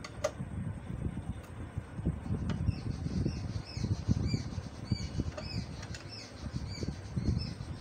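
Combination spanner working the fog lamp's mounting bolt tight: irregular low knocks and scraping from the tool and bracket. From about two and a half seconds in, a run of short high chirps repeats about twice a second until near the end.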